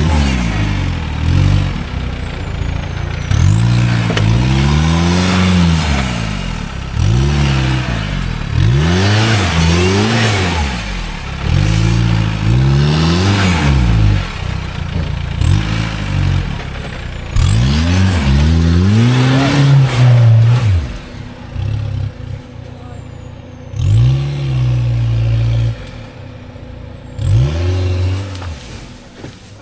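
Off-road vehicle's engine revving hard again and again, its pitch rising and falling every couple of seconds, then dropping back with two short blips of throttle near the end.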